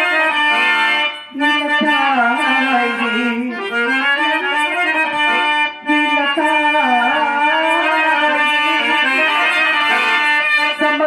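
Harmonium playing a slow melody of sustained reed notes, as accompaniment to a Telugu padya natakam stage performance, with two brief breaks in the sound.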